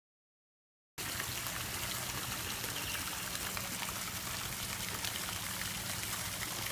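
Steady rush of water, with a faint low hum underneath, starting abruptly about a second in.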